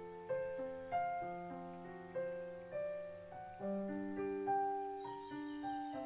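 Solo piano playing an unhurried piece, a new note or chord struck about every half second, each ringing and fading away.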